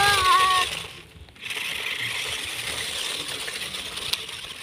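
Small electric RC off-road trucks driving over gravel and dry leaves: a steady gritty, rattling hiss of motors, gears and tyres on loose ground, with a short dropout about a second in.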